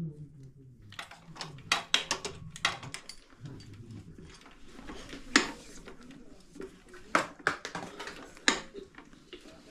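Scattered metallic clinks and knocks of hand tools and bike parts being handled, at irregular intervals, the sharpest about five seconds in.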